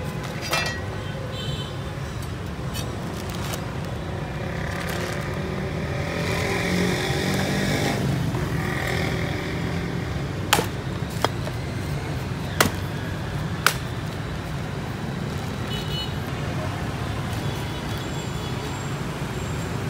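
Steady street traffic noise that swells as a vehicle passes about six to nine seconds in. Four sharp knocks come between about ten and fourteen seconds in.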